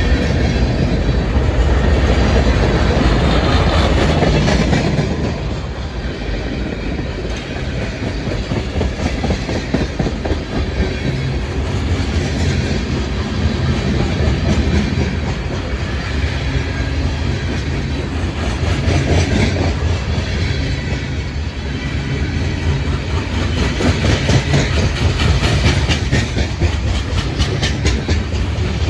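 Freight train cars rolling past at close range: a steady rumble of steel wheels with repeated clickety-clack over the rail joints. It is loudest in the first few seconds.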